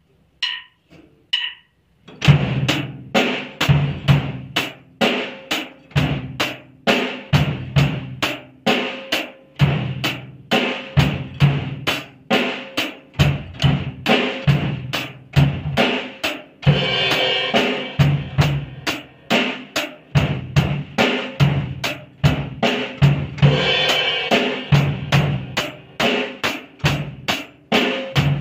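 Acoustic drum kit played at a slow, steady beat of about two strokes a second, bass drum and snare under a cymbal, starting about two seconds in. A few stick clicks count in before the beat. A cymbal rings out twice in the second half.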